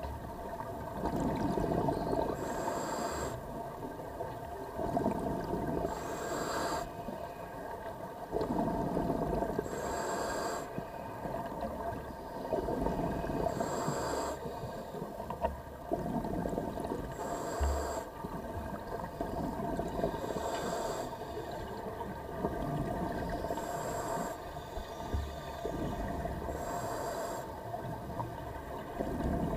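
Scuba diver breathing through a regulator underwater, heard through the camera's housing. A short hiss on each inhale alternates with a burst of rumbling exhaust bubbles, about one breath every three and a half seconds, over a steady faint hum.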